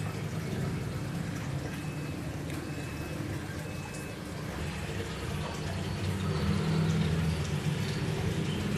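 Aquarium water running and trickling steadily, the continuous wash of the tank's filter circulation.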